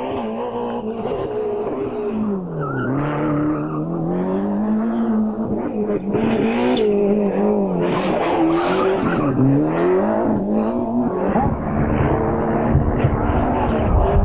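A 1990s Group A rally car driven flat out on tarmac. The engine's pitch drops as it brakes and downshifts for corners, then climbs again as it accelerates through the gears, several times over, with tyres squealing.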